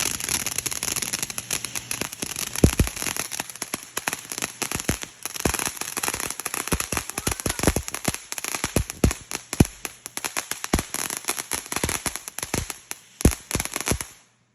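A 'Disco Turkey' consumer firework going off with continuous dense crackling and many sharp pops. It cuts off abruptly near the end.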